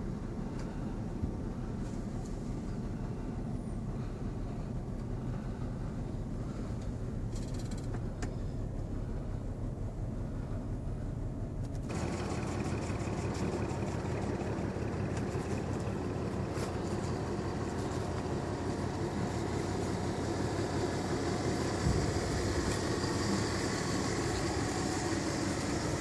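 Steady low rumble of a vehicle driving slowly, heard from inside the cab. About halfway through the sound suddenly opens up into a brighter, hissy outdoor noise over the continuing rumble.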